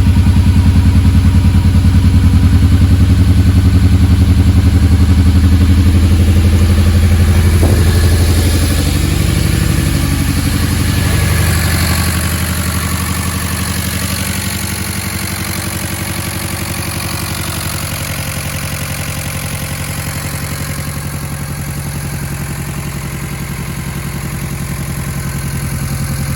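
Mitsubishi Lancer Evolution 8 MR's turbocharged 4G63 inline-four running just after its first start following a rebuild. It is loud for the first several seconds, then settles quieter into a steady idle.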